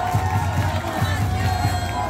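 Crowd of football supporters in the stands cheering and chanting, a dense mass of voices.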